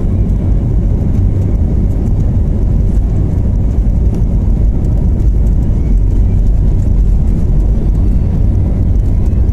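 Loud, steady cabin rumble of an Airbus A320-family jet's engines and wheels on the runway during the take-off roll.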